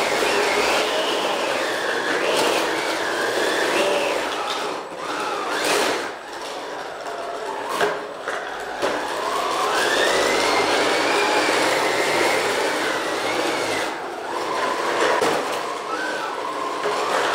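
Spyker KAT 3D-printed 1/12-scale RC tracked dump truck driving: its drive motors and geared 3D-printed tracks whine, the pitch rising and falling as the throttle changes, with brief easings off about six and fourteen seconds in.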